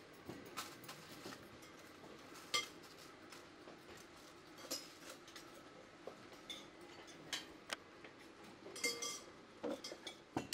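Kitchen clatter: cutlery, plates and steel pots clinking and knocking now and then while food is being served, with a few sharper clinks about two and a half seconds in and a small cluster near the end.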